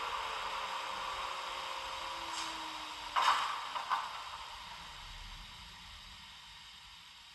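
An ESU sound decoder in a Märklin H0 Krokodil Ce 6/8 model plays electric-locomotive sound through its small speaker. A hiss with a falling whine winds down and fades away, with two sharp clicks a little under a second apart around the middle.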